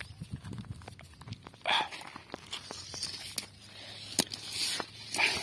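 Footsteps on sandy, gravelly ground, with many small clicks. There are two louder scraping crunches, one about a second and a half in and one near the end.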